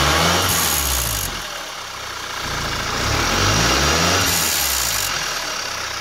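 Turbocharged 2.0T four-cylinder engine revved up from idle twice, with the wastegate rattle: a loose rattle from the turbo's wastegate actuator rod separating from its arm.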